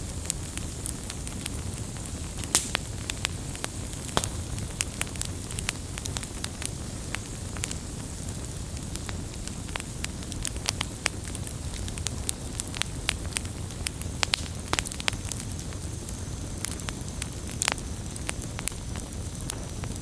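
Firewood burning, a steady low rush of flame under frequent, irregular sharp crackles and pops of the wood.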